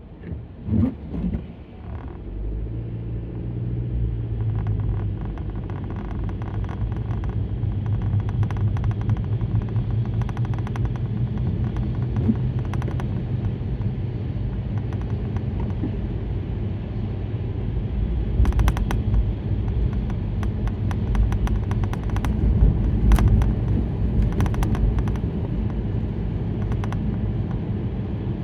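Car cabin on the road: a steady low drone of engine and tyres that builds over the first few seconds as the car gets up to speed, then holds. Scattered sharp ticks come through in the second half.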